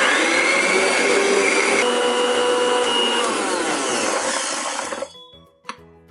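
Electric mixer grinder (mixie) grinding chopped amla (Indian gooseberry) pieces with salt. The motor starts suddenly, runs loud for about five seconds, then is switched off and winds down.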